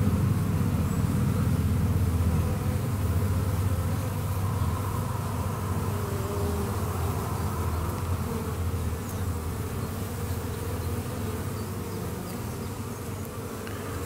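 Steady buzzing hum of many honeybees flying in and out of the hive entrance.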